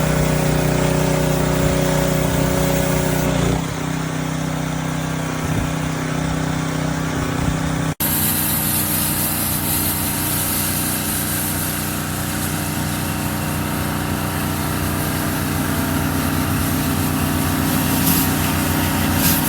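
Small gasoline engine of a pressure washer running steadily, with a constant hiss over it. It drops a little in level about three and a half seconds in, and cuts out for an instant at about eight seconds before carrying on.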